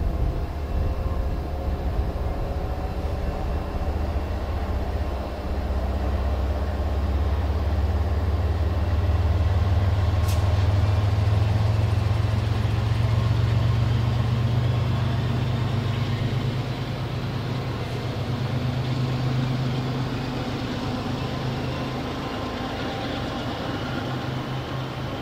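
MBTA HSP46 diesel-electric locomotive powering up as it departs, pushing its commuter train from the rear. Its deep engine drone swells about a third of the way in and then slowly fades as it draws away, with faint rising whines over it and a single sharp click near the middle.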